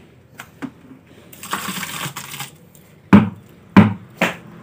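Watery cattle feed mash (comboran) poured from a bucket into a concrete trough with a splashing hiss, followed by three sharp knocks as the bucket is banged on the trough to empty it.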